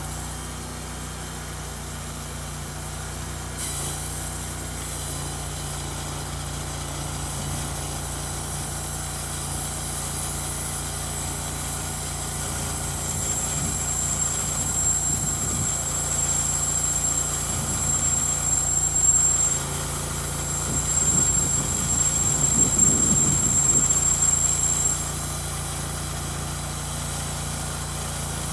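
Homemade sawmill running: its engine hums steadily, and a high hiss joins about four seconds in. A thin high whine sounds from about 13 to 25 seconds in, as the blade cuts.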